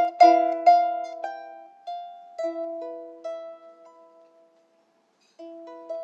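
Small harp played solo, its strings plucked: a quick run of notes, then a few slower notes left to ring and die away. After about a second of silence, the plucking picks up again near the end.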